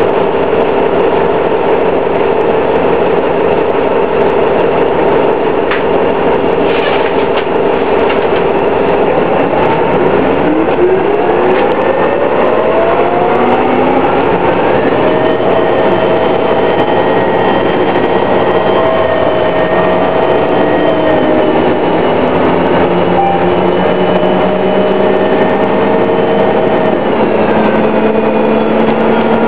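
Detroit Diesel Series 50 engine and Allison B400R transmission of a 2000 New Flyer D60 articulated bus running under way, with a loud whine. The whine rises in pitch from about ten seconds in, holds steady, then falls away near the end.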